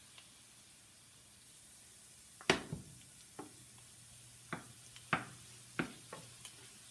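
Wooden spatula stirring shrimp in a small frying pan, knocking against the pan: one sharp knock about two and a half seconds in, then several lighter taps, over a faint sizzle.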